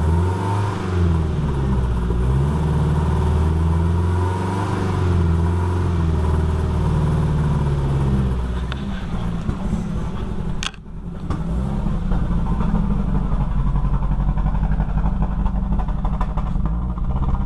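Ford Focus SVT's 2.0-litre four-cylinder running, back in service after a head gasket replacement; its pitch rises and falls in the first half, then it settles into a steady idle after a sudden brief dropout about ten seconds in.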